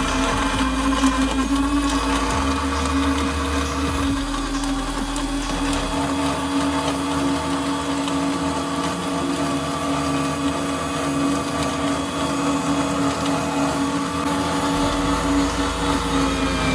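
Sujata mixer-grinder running steadily at full speed, blending coconut cream with milk and powdered sugar into a thick shake. The motor keeps one even hum throughout.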